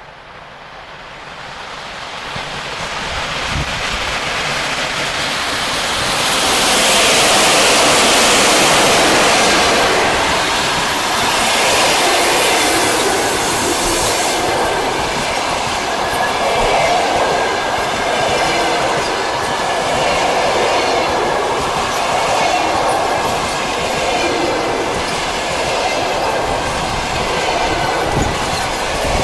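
Škoda-built ChS7 DC electric passenger locomotive approaching and passing close by with a long passenger train. The noise swells to a loud rush that peaks several seconds in as the locomotive goes past, then settles into the steady rumble and clickety-clack of the coaches' wheels rolling by.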